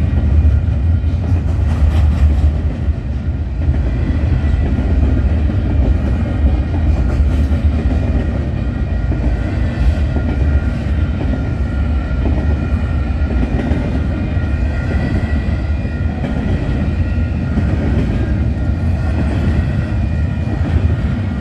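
Freight train rolling past close by: a steady, loud low rumble of the cars with wheel clatter on the rails and thin, steady high tones over it.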